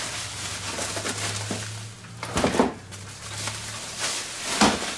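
Handling noise of a folding camping toilet and its bags being unpacked: rustling and a few knocks, over a low steady hum that stops about four seconds in.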